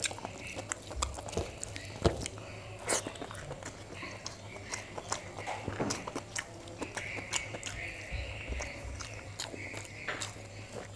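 Close-miked eating sounds: wet chewing with small mouth clicks and smacks, and the soft squish of fingers working rice and fish on a steel plate, in a scatter of irregular little clicks.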